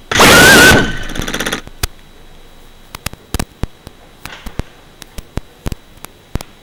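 The tiny motors of a crashed whoop drone spin up in a short, loud whining buzz, which fades away with a fluttering trail. This is a crash-flip attempt while the drone lies tipped over. It is followed by a series of sharp, irregular clicks and taps.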